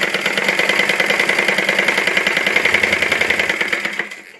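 Old sewing machine running at a fast, steady stitch, sewing lace onto the edge of a saree; it slows and stops near the end.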